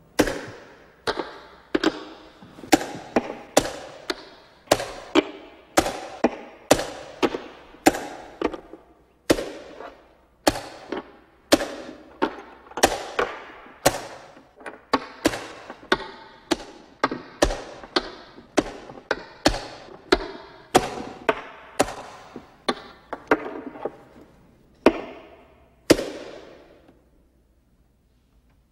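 Wooden chess pieces set down hard on the board, along with presses of the chess clock, in a fast run of sharp knocks, each ringing briefly. It keeps up about one and a half knocks a second for some 26 seconds and ends on one loud knock: a rapid exchange of moves.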